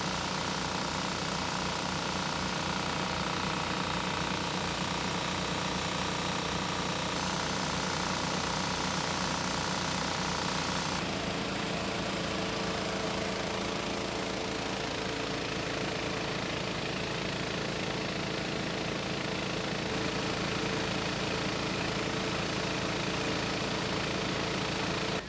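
Steady engine-like machine hum made of several held tones over a rushing noise; the higher tones drop away about 11 seconds in, and the low hum continues.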